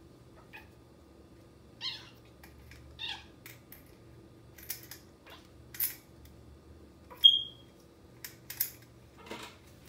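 Manx kittens playing and wrestling: a few short meows, quick scratchy scuffles of paws and claws on the floor and mat, and one sharp, high squeak about seven seconds in.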